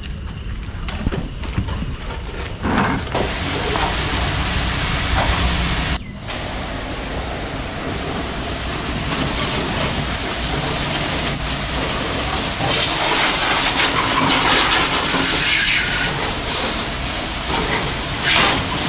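High-pressure water jet hissing as it sprays down a motorcycle during washing. It gets louder about three seconds in and breaks off briefly around six seconds.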